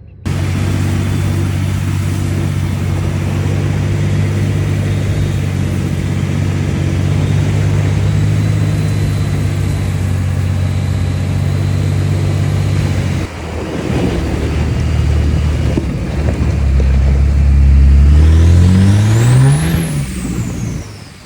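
Dodge pickup's Cummins diesel engine running at a steady pitch. Then, after about 13 seconds, it revs up, with its pitch climbing steeply and a high whistle rising and falling near the end, before the sound drops away.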